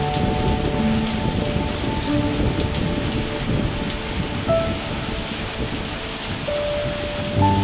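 Heavy, steady rain with a low rumble of thunder. Several soft held tones, like quiet music, sound over it.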